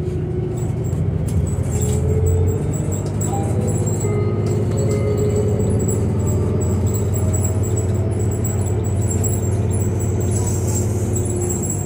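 Interior ride noise of a New Flyer Xcelsior XDE40 diesel-electric hybrid city bus under way: a steady low drone with a thin, high, continuous whine above it.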